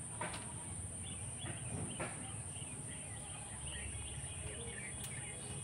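Faint background of small birds chirping over a steady high hiss, with a few soft taps of a knife blade going through dough onto a wooden chopping board, about two seconds in.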